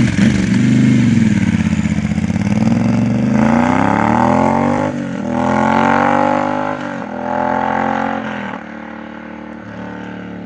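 Moto Guzzi Bellagio's transverse V-twin through Quad D mufflers, pulling away and accelerating hard. The revs climb and drop sharply with each of about four upshifts as the bike fades into the distance.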